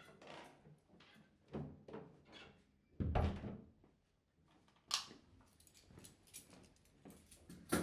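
Household knocks and thuds of a door and things being handled in a small room, the heaviest thud about three seconds in and sharp clicks near five seconds and at the end.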